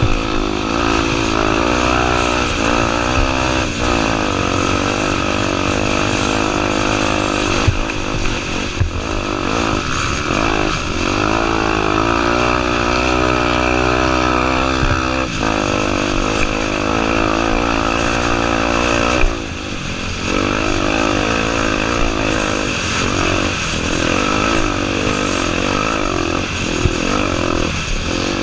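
A Honda Tornado 250's single-cylinder four-stroke engine being ridden hard, its note climbing and falling again and again as the throttle opens and closes through the gears. The engine note drops off briefly about two-thirds of the way through, then picks up again.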